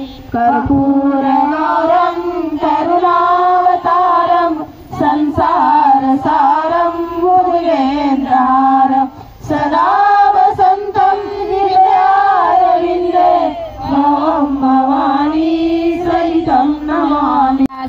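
Women singing a Shiv Charcha devotional song together, one melodic line in phrases with short breaks about every four to five seconds.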